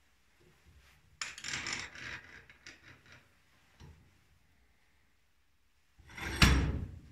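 Steel bench vise being closed and tightened on a small metal part: a scraping metal rattle a little over a second in, a few light clicks, then a loud clank near the end as the vise handle is cranked tight.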